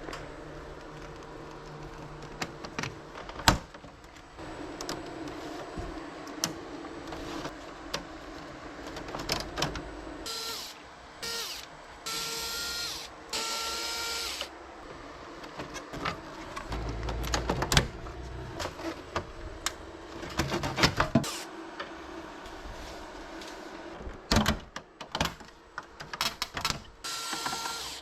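Electric screwdriver whirring in about five short bursts, four in a cluster about halfway through and one near the end. Between them come scattered clicks and knocks of plastic parts being handled during disassembly of an air conditioner.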